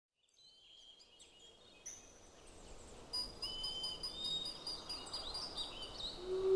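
Birds chirping and whistling over a faint background hiss, fading in from silence. Just before the end a low held musical note comes in.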